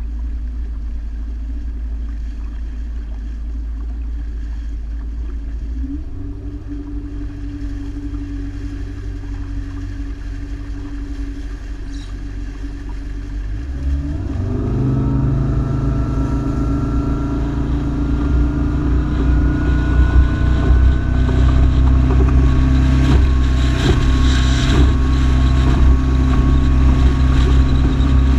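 Motorboat engine running at low speed, then opened up about halfway through: it grows louder and its pitch climbs slowly for several seconds before holding steady. Wind and water rush over it near the end.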